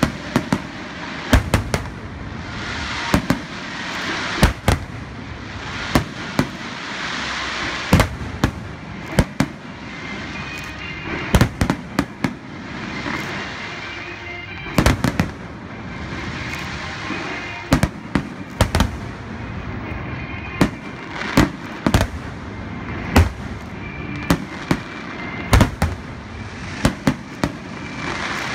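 Aerial firework shells bursting in quick succession, a sharp bang every second or so, with the stars crackling and fizzing between the bangs.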